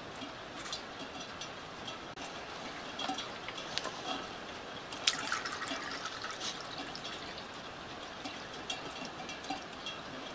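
Water poured from a plastic jug through a funnel into the boiler of a Metre Maid miniature steam locomotive, filling it, with scattered light clicks of handling and a brief louder clatter about five seconds in.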